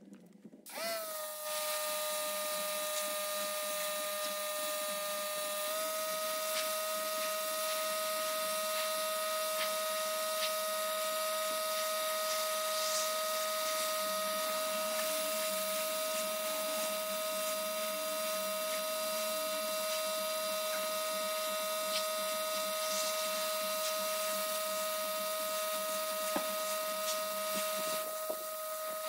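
An electric motor spins up about a second in and then runs at a steady speed with a constant whine, shifting pitch slightly a few seconds later. Light ticks sound over it.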